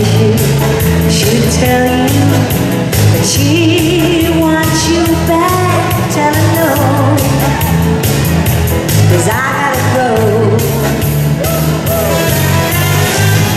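Amplified pop music with a steady beat and a woman singing live into a microphone, carrying through a large hall.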